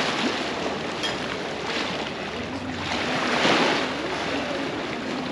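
Small lake waves washing against a stone embankment, with one surge that swells and fades about three and a half seconds in.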